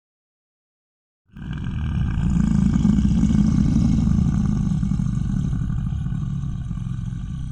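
Dragon roar sound effect: after a second of silence, one long, low, rough roar that swells, then slowly fades.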